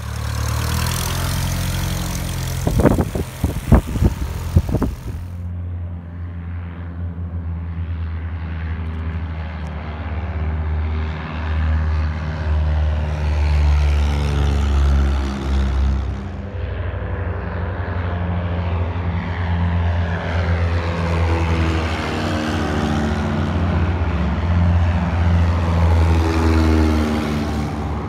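Aviat Husky light taildragger's propeller engine running as a steady drone that swells and shifts in pitch as the plane taxis and takes off. A short burst of sharp knocks comes about three to five seconds in.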